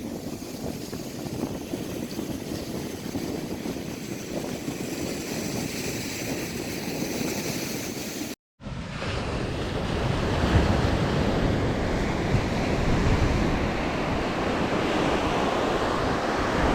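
Ocean surf washing onto the beach, with wind buffeting the microphone. A split-second break about halfway through, after which the surf and wind are louder.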